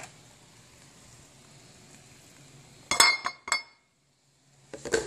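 A few sharp clinks with a short ring about three seconds in, as a colander is knocked against a ceramic plate to tip strained corn out, followed by more light knocks near the end.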